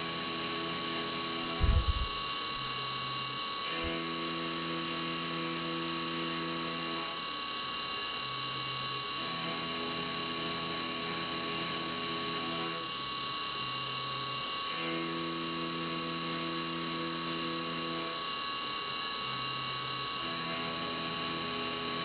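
Stepper-driven CNC mill cutting the recoil-groove slots of a Picatinny rail with a 3/16-inch end mill under flood coolant. The spindle whine stays steady while the axis stepper motors sing pitched tones that change every two to three seconds as the table moves back and forth between passes. A short thump comes about two seconds in.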